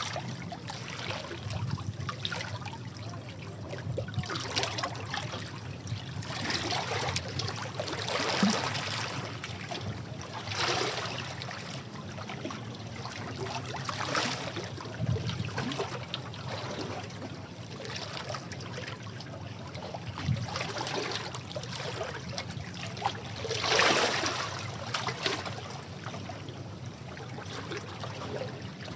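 Sea waves washing over rocks: a steady rush of water with a surge every few seconds as each wave breaks, the biggest about three-quarters of the way through.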